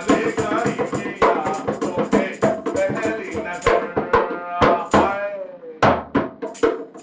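Dholak hand drum played in a steady chutney rhythm, with a man singing over it; the singing stops a little after five seconds in, leaving the drum strokes.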